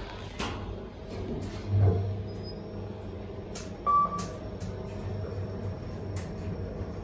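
KONE MonoSpace elevator car riding down with a steady low hum. There is a low thump about two seconds in, a few faint clicks, and one short beep about four seconds in.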